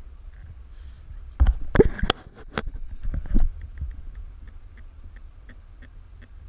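Inflatable boat rocking on the sea, with a low rumble of water and wind on the raft-mounted camera. A cluster of loud knocks and bumps against the raft comes a second or two in, followed by faint regular ticking about three times a second.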